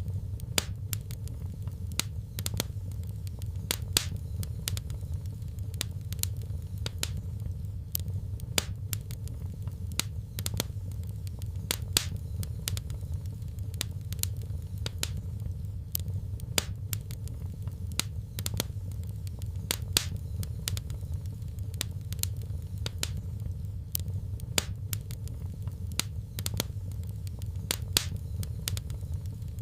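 Wood fire crackling in a fireplace: sharp, irregular snaps and pops, a few louder than the rest, over a steady low rumble.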